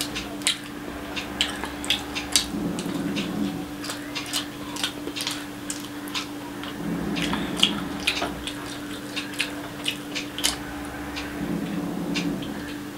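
Close-miked eating: wet chewing and many short mouth clicks and smacks as a woman eats rice and curry-soaked boiled egg by hand, with her fingers mixing rice on the plate. A steady low hum runs underneath.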